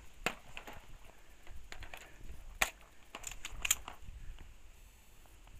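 Magazine change on a magfed paintball marker: a handful of sharp clicks and knocks as the magazine is handled and seated, the loudest about two and a half and three and a half seconds in.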